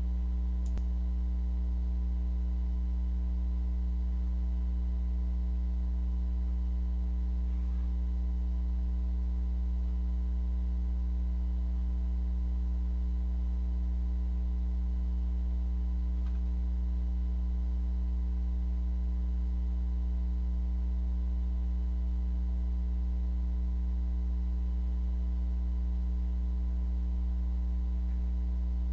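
Steady low electrical hum with a faint buzz of fixed higher tones above it, unchanging in level.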